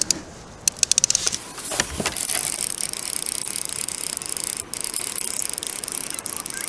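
Fishing reel clicking rapidly as an angler plays a hooked salmon: fast ratcheting that starts about half a second in and runs on as an even, rapid clicking.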